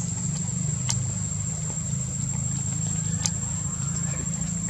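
A steady low engine-like hum, like a motor idling, runs under a continuous high-pitched insect trill, with two sharp clicks, one about a second in and one about three seconds in.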